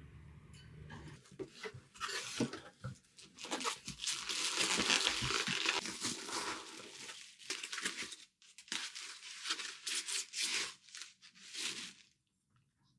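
Crinkly material being torn and crumpled: a dense run of crackling with a few short pauses, loudest in the middle, stopping abruptly near the end.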